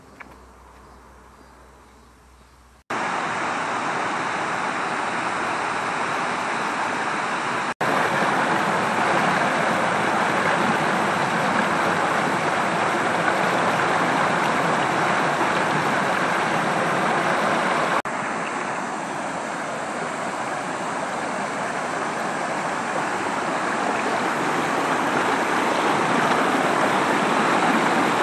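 Fast-flowing river water rushing over and around concrete stepping stones and a low weir: a loud, steady rush that starts abruptly about three seconds in, after a faint lead-in.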